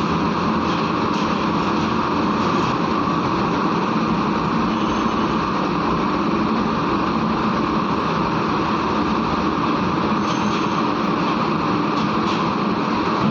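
Steady, unbroken drone of large diesel engines running, with no change in pitch.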